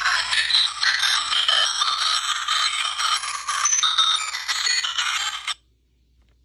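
Handheld ultrasound detector playing its converted output through its speaker: a loud, scratchy, crackling hiss with brief shifting whistles, cut off suddenly about five and a half seconds in.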